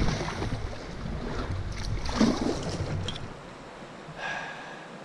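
Water sloshing along a canoe's hull on a river, with wind buffeting the microphone; the wind rumble drops away a little over three seconds in.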